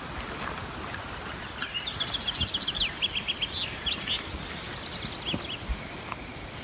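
A small songbird singing one quick run of short, high, clear notes lasting about four seconds, over a steady outdoor hiss.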